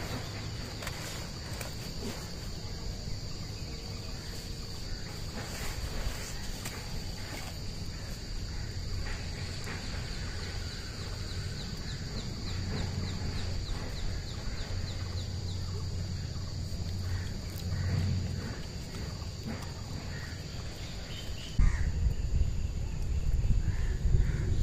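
Insects droning steadily at a high pitch, with a brief run of quick ticking partway through. A louder low rumble sets in near the end.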